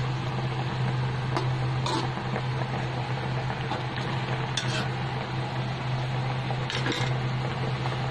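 Spatula stirring and scraping in a wok of boiling egg sauce for fish: a few short scrapes a second or two apart over a steady bubbling hiss and a low hum.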